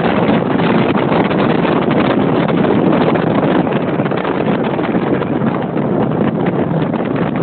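Steady rushing wind on the microphone of a speeding ski boat, mixed with the boat's engine and water noise.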